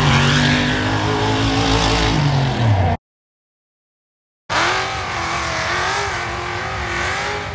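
A vehicle engine running while driving, its pitch dropping as it slows, then cut off abruptly. After a short gap of dead silence, a second stretch of engine noise with a wavering pitch.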